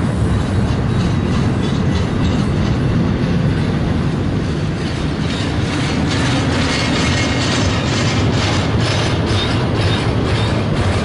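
Double-stack intermodal container train passing close by: a steady rumble of the well cars' steel wheels on the rails. About halfway through, the clickety-clack of wheels crossing rail joints comes through more distinctly.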